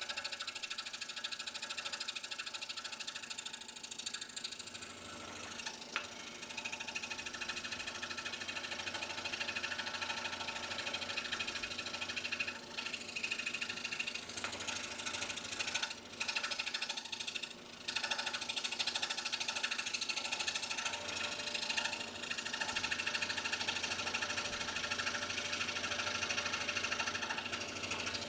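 Scroll saw running, its reciprocating blade cutting through a stack of basswood layers, with a few brief dips in the sound a little past halfway.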